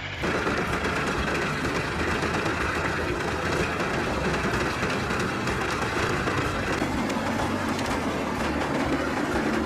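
Heavy forestry machine running hard: a steady engine under a loud, dense grinding and rattling that begins abruptly just after the start.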